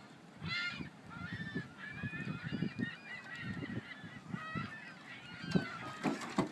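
A dog whining and yelping excitedly in many short, high, wavering cries, over soft low thumps.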